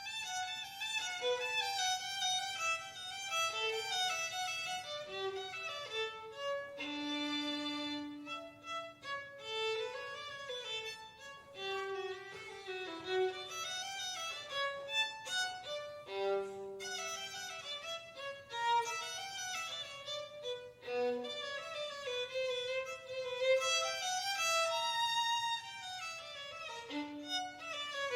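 Violin playing a melody of running and held notes, with a long low held note about seven seconds in.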